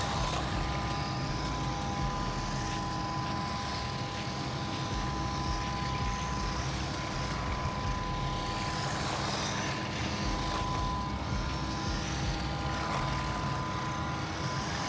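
Small RC truck with a 390 brushed motor driving on concrete: its motor whine and tyre noise swell at times as it runs about, over a steady mechanical hum with constant tones.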